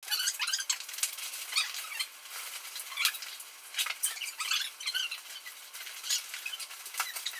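Plastic bags and packing gear rustling and crinkling in irregular bursts as they are handled and sorted.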